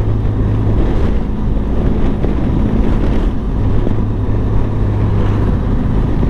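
Benelli TRK adventure motorcycle's engine running while riding at a steady pace, its low hum fading for a couple of seconds mid-way, with wind buffeting the microphone.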